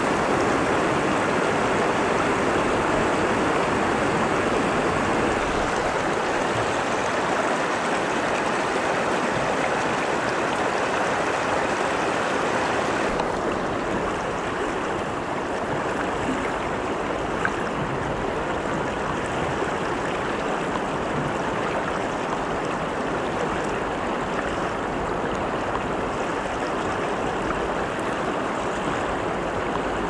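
Mountain stream water rushing steadily. A little before halfway through, the sound abruptly turns duller, losing much of its upper hiss.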